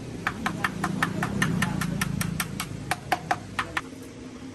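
A rapid, even series of sharp taps or clicks, about five a second for roughly three and a half seconds, over a low steady hum.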